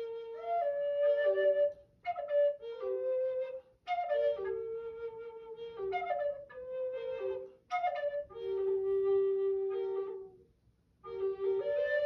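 Native American flutes playing a slow melody in short phrases, with brief gaps between them and one long low held note near the end.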